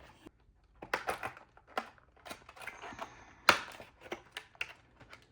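Gel polish kit contents and packaging being handled: scattered light clicks and taps with brief rustling, one sharper tap about three and a half seconds in.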